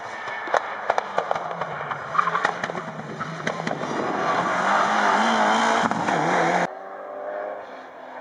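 Mitsubishi Lancer Evolution rally car's turbocharged four-cylinder engine on a tarmac stage: a string of sharp exhaust pops and cracks as it comes toward the corner, then a loud rising engine note as it accelerates past close by. It cuts off abruptly near the end, giving way to a quieter, more distant rally car engine.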